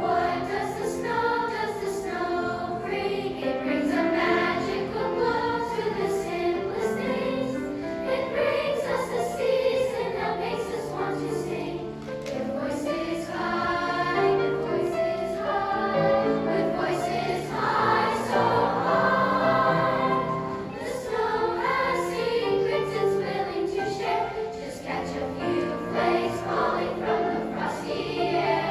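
Large children's choir singing a slow, flowing song, accompanied by piano.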